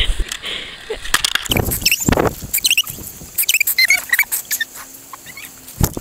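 Wild parrots, crimson rosellas and rainbow lorikeets, give many short chirping calls while they crowd around a person being hand-fed, with wing flutters and knocks as they land on his arms. The louder knocks come about two seconds in and near the end.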